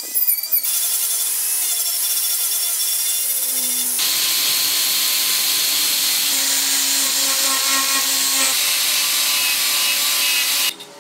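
Handheld power tools grinding and sanding wood: first a small rotary tool, then a sanding drum and an angle grinder's carving disc. The grinding turns fuller and deeper about four seconds in, then cuts off sharply near the end.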